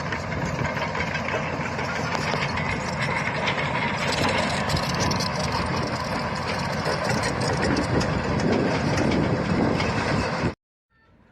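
Backhoe's diesel engine running steadily as the machine moves, with a constant rattle of small clicks and clanks over it. It cuts off abruptly about a second before the end.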